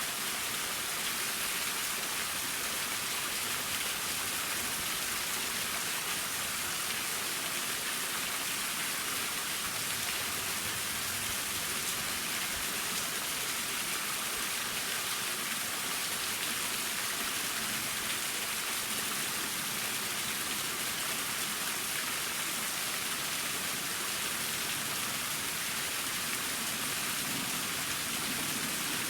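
Waterfall: water falling and splashing, a steady, even hiss with no breaks.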